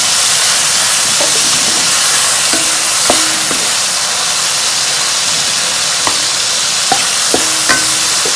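Stir-fry sizzling steadily in a hot wok as the chopped kailan stems and garlic in sauce are tossed with a wooden spatula, with a few brief clicks and scrapes of the spatula against the wok.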